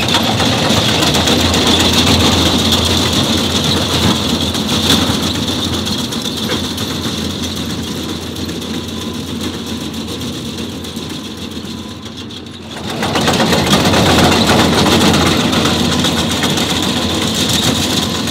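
Bobcat skid steer's diesel engine running as it pushes a rake attachment through loose soil. The sound eases off briefly about twelve seconds in, then comes back louder.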